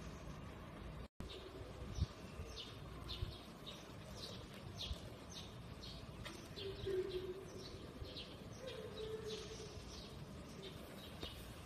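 Small birds chirping steadily, about two short chirps a second, with a few low cooing notes held for a second or so partway through. A soft knock about two seconds in.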